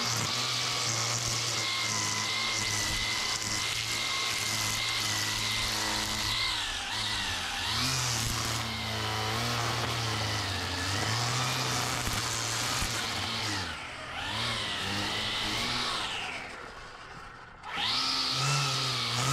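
Toro 60-volt cordless string trimmer running, its electric motor whining steadily with the line cutting grass along the patio pavers. The pitch dips and recovers several times, then the motor slows and fades before speeding back up abruptly near the end.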